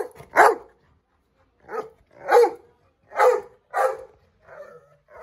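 A black pet dog barks in excited greeting: a run of about six short, loud barks, loosely in pairs, followed by a couple of softer ones near the end.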